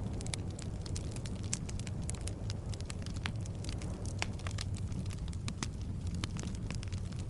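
Logs burning in a fireplace: a steady low rumble of flames with frequent irregular sharp crackles and pops.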